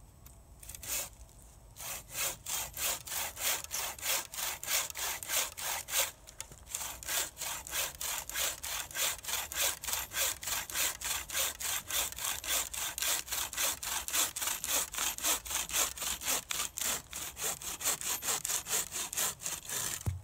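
Homemade frame bucksaw with a hemlock-stick frame cutting through a log: rhythmic back-and-forth strokes of the blade in the wood, about three a second, with a brief pause about six seconds in, until the round is sawn through at the end.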